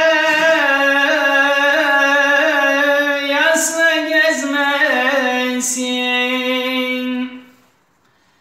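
A man's high voice singing a Turkish folk lament unaccompanied, drawing out long wavering held notes that step lower in pitch, ending about seven seconds in.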